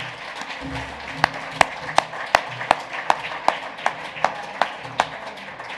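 Audience applauding. Over it, one person's loud, sharp claps sound close by and evenly spaced, nearly three a second, from about a second in until near the end.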